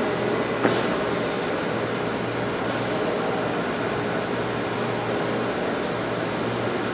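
The walk-in freezer's five-fan ceiling evaporator unit is running with a steady whir of air and a low motor hum. Under the fan delay, its fans only run once the coil has gone cold. There is a single click about a second in.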